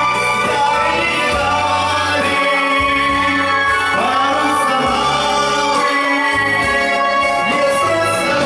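A man singing a song into a microphone over a recorded backing track, amplified through the room's speakers.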